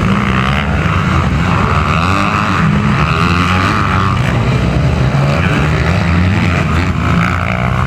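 Motocross dirt bike engines running hard on the track, the pitch rising and falling as the throttle opens and closes.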